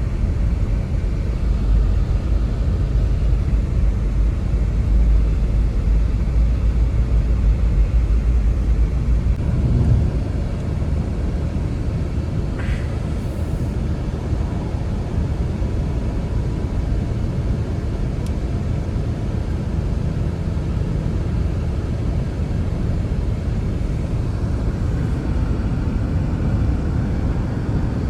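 Storm wind rumbling and buffeting the microphone in a blizzard, heavier for about the first ten seconds and then easing off a little.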